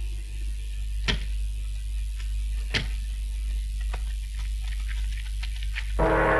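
Two sharp knocks about a second and a half apart, then a run of fainter ticks, over a steady low hum; music starts near the end.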